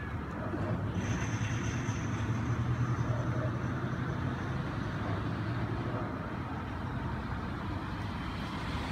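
A motor vehicle's engine running steadily as a low hum, strongest from about one to four and a half seconds in, with a faint high whine over the same stretch.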